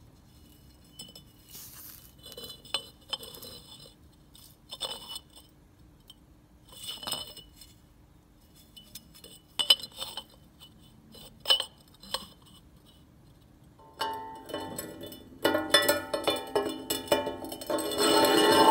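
Notched steel tube clinking and tapping against steel, a handful of separate ringing metallic knocks. About fourteen seconds in, background music starts and grows louder than the knocks.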